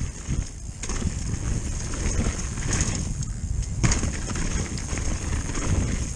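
Mountain bike riding fast down a dirt forest trail, heard from a bike-mounted action camera: a steady low rumble of tyres and wind on the microphone, with irregular knocks and rattles as the bike hits bumps and roots.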